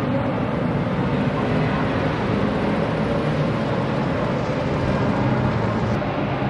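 Engine and exhaust of a modified 448-horsepower all-wheel-drive MINI Countryman running at a steady engine speed, a dense, even exhaust note with no revving up or down.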